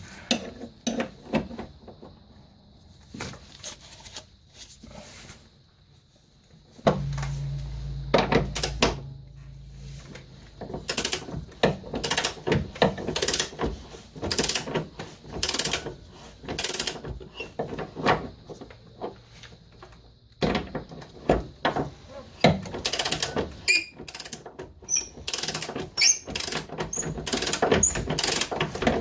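Steel wrenches clinking and knocking against an 18 mm suspension bolt and the car's control arm as the bolt is held and loosened by hand: many short metallic knocks, coming in runs of about two a second in the second half.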